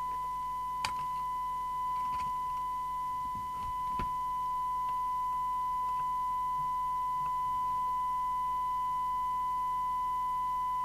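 Steady 1 kHz test tone from the signal generator, received on the CB radio and heard through its loudspeaker during receiver alignment. A few light clicks and knocks in the first four seconds.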